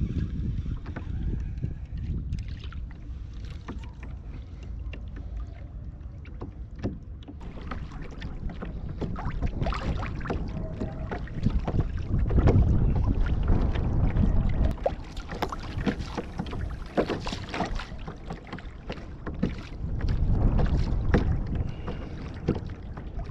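A fishing kayak on the water: small splashes and water slapping against the plastic hull, with knocks from gear being handled aboard, over a low rumble of wind on the microphone. It grows louder for a few seconds about halfway through and again near the end.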